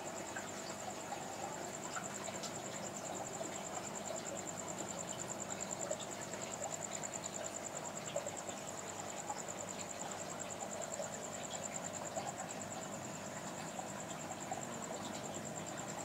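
Running aquarium: a steady hum from the air pump and filter with small bubble pops from the air stone, under a continuous high, fast-pulsing trill.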